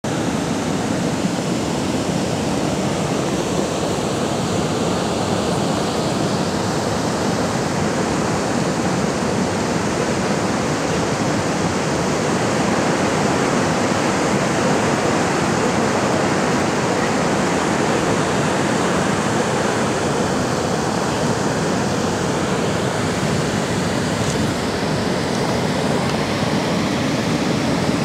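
Niagara Falls: a steady, dense rush of water plunging over the falls.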